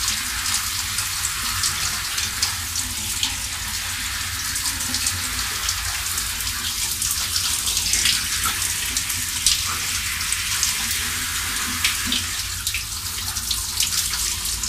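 Shower running: water spraying steadily from a wall-mounted showerhead onto a person's head and the tiled stall, a loud continuous hiss with many small splashes.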